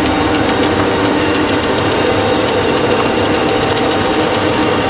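ELF Systems Pellet Mill 772 production line running while pelleting wild artichoke biomass: a steady, loud machine hum from its electric motors and press, with a constant scatter of small clicks over it.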